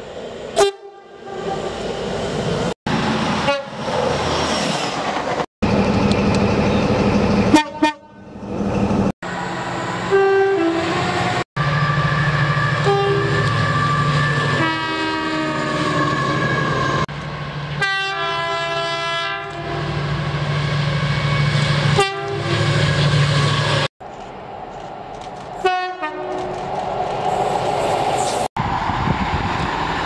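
A string of short clips of British trains sounding their horns, many blasts in all, some two-tone and some falling in pitch as the train passes, over the rumble of trains on the line. The sound cuts off abruptly between clips.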